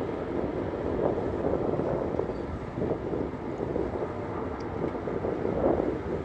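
Wind buffeting the microphone: a gusty, low rumble with no steady tone, swelling and easing.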